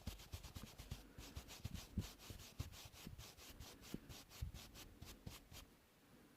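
A brush scrubbed in quick, even strokes, about five or six a second, each stroke scratchy with a soft low thump; the strokes stop shortly before the end.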